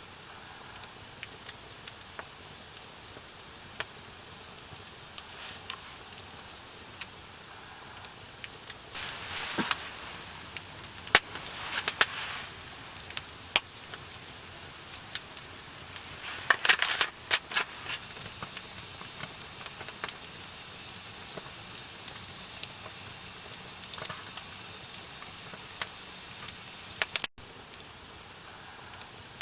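Wood campfire crackling with frequent sharp pops over a steady hiss, with louder flurries of hissing and popping about 9 and 17 seconds in.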